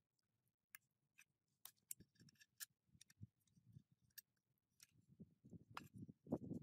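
Faint, scattered clicks and light scrapes of a hex key and metal engine parts being handled during engine disassembly, growing into a louder clatter and rubbing near the end as the metal fan shroud is lifted off the engine.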